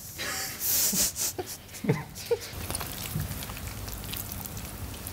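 Hands kneading very wet, sticky pizza dough in a bowl: irregular wet squelches and squishes.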